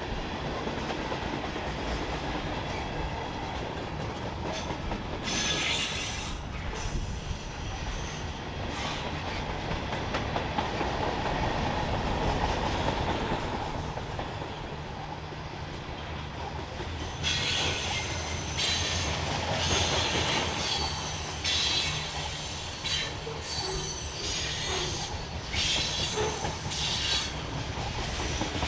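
Railroad cars of a Norfolk Southern freight train rolling past with a steady rumble of wheels on rail. Over it come bursts of high-pitched wheel squeal, once about five seconds in and then again and again in the second half.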